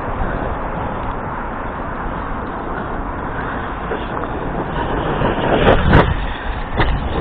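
Arrma Kraton RC truck with its brushless BLX system being driven hard: a steady rushing noise, broken by loud knocks about six seconds in and again near seven seconds, typical of the truck hitting the ground.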